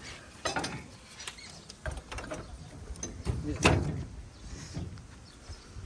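Scattered metallic clicks and knocks from hand work on machinery, with one louder knock about three and a half seconds in.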